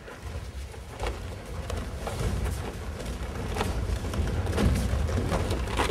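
A low rumble that grows louder, with sharp thuds and slaps about once a second.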